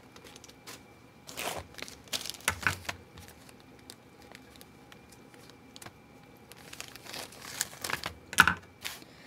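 A small plastic packet crinkling and rustling as it is handled and snipped open with scissors, with small clicks. It comes in bursts, quieter in the middle, with the loudest rustle near the end.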